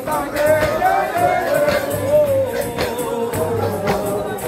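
Revivalist worshippers singing a chant together over a steady percussion beat, with sharp strikes and low thuds keeping time under a wavering sung melody.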